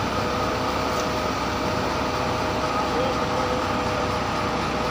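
Heavy boat-transport trailer's engine running steadily under load, a constant rumble with a steady whine over it.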